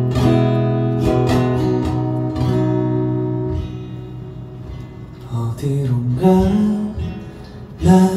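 Steel-string acoustic guitar strummed in ringing chords, easing off to quieter playing about halfway through, then picking up again with single notes and chords in the last few seconds.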